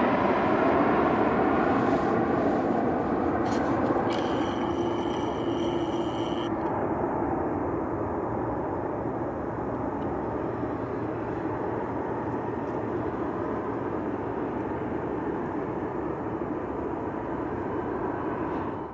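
Jet airliner engine roar, fading over the first several seconds as the plane moves away, then holding at a steadier rumble. A high steady whine sounds for a couple of seconds about four seconds in, and the sound cuts off abruptly at the end.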